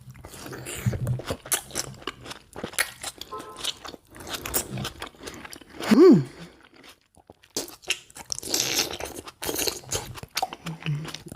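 Close-up eating sounds: biting into and chewing juicy raw tomatoes, with wet crunching and smacking. There is a brief hum about six seconds in.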